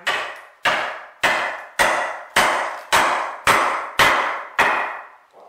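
A wood chisel struck repeatedly to chop out a mortise: nine even, sharp blows, a little under two a second, each dying away with a short ring.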